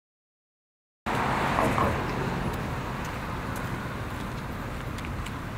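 Silence, then about a second in, city street ambience cuts in suddenly: a steady hum of road traffic with a few faint ticks.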